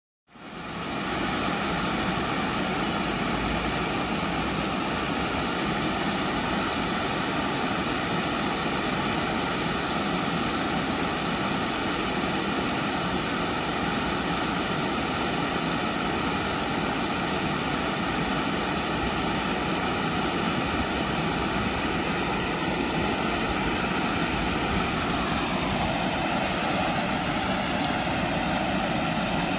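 Water pouring over a small curved concrete weir into a stream: a steady rushing noise that fades in just after the start and holds unchanged.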